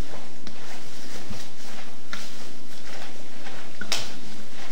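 Food preparation at a kitchen counter: scattered light taps, knocks and rustles of hands and utensils working dough and filling, with one sharper click about four seconds in.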